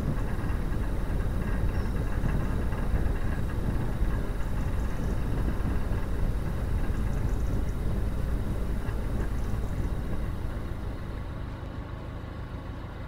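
Narrowboat's diesel engine idling, a steady low rumble while the boat lies temporarily tied up at the bank.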